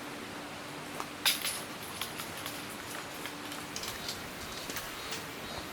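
Scattered light clicks and scratchy rustling over a steady background hiss, with one sharper click about a second in.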